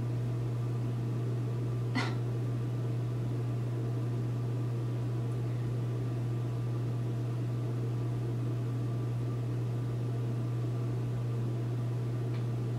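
A steady low hum with a hiss over it, running evenly throughout; a single short click about two seconds in.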